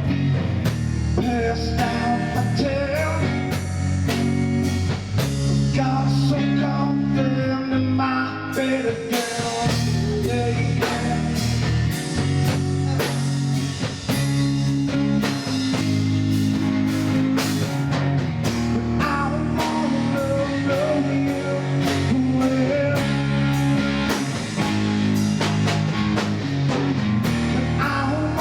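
Blues-rock music: guitar over bass and a drum kit, playing steadily.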